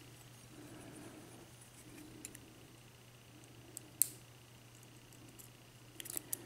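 A few light metallic clicks and taps from the padlock's disassembled core and its small pins being handled, over a faint steady hum. The sharpest click comes about four seconds in, and there is a quick run of small clicks near the end.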